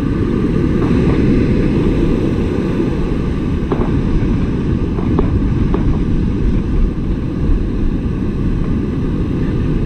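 Wind buffeting the microphone over the wash of surf, a steady low rumble, with a few faint ticks.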